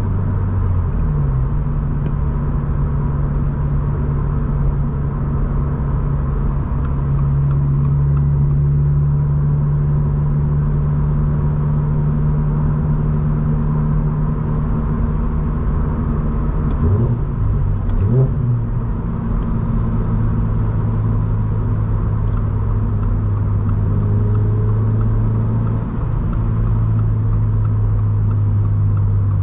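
Toyota GR86's 2.4-litre flat-four with a Borla S-Type exhaust, heard from inside the cabin, droning steadily at cruise. About 17 seconds in, the engine note wavers and then settles at a lower steady pitch.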